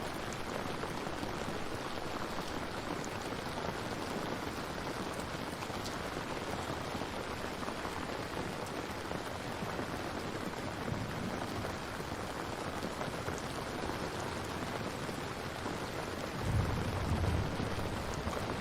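Steady rain falling, an even hiss of drops, with a short low rumble of thunder near the end.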